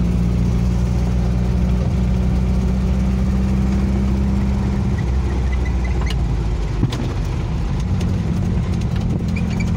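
Air-cooled flat-four engine of a 1979 Volkswagen Fusca (Beetle) running while the car is driven, heard from inside the cabin. The steady engine note changes about five seconds in and turns rougher, and there is a single short knock about seven seconds in.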